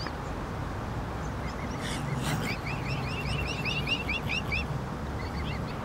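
Mute swan cygnets peeping: a run of short, high peeps, about six a second, from about one and a half seconds in to about four and a half seconds, over a steady background hiss.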